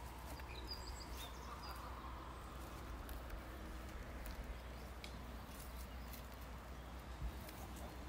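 Faint outdoor meadow ambience: a steady low rumble, scattered light clicks and rustles, and a couple of brief high bird chirps in the first two seconds.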